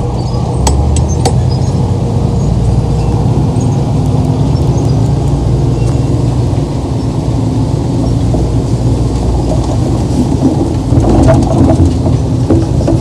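Crawler bulldozer's diesel engine running steadily with a heavy low rumble, with a few sharp clinks in the first second or so and metallic track clanking growing louder near the end.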